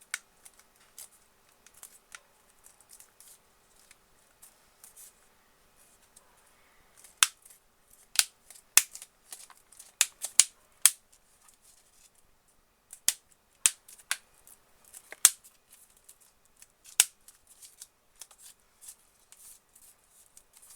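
Plastic back cover of a tablet being pressed onto the case, its clips snapping into place in a string of sharp, irregular clicks, the loudest bunched from about a third of the way in to near the end.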